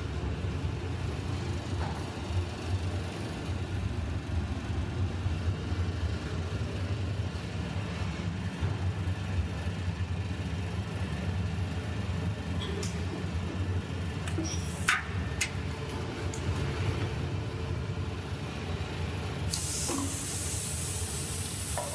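Aluminium die-casting machine running with a steady low hum, with a few short metallic clinks. Near the end a loud hiss starts and carries on.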